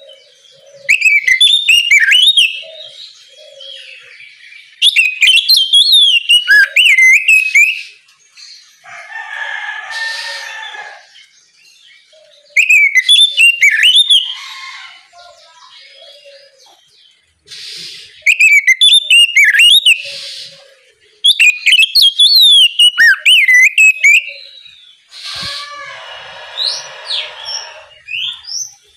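Oriental magpie-robin (kacer) singing a loud, varied song of rapid whistled notes that glide up and down, in five phrases of two to three seconds each with short pauses between. A harsher rasping sound comes twice between the phrases.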